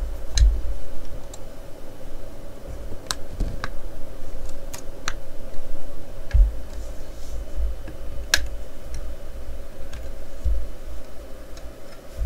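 Plastic model car parts being handled and pressed together: sharp plastic clicks and taps scattered irregularly, the loudest about eight seconds in, over soft rubbing and low bumps against the work mat.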